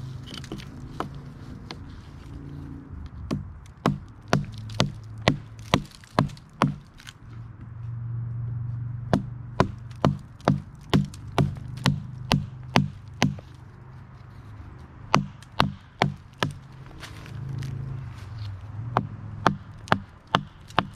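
A hatchet chopping into the resin-soaked wood (fatwood) of a lightning-struck pine log. It lands sharp blows in runs of several strokes, about two a second, with short pauses between the runs.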